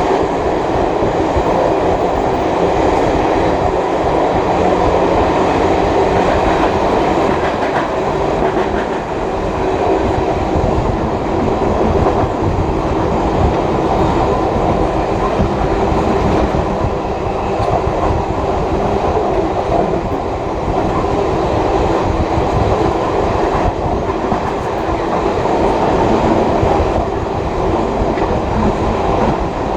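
Passenger carriage of a steam-hauled heritage train running along the line, with a steady rumble and clatter of its wheels on the rails.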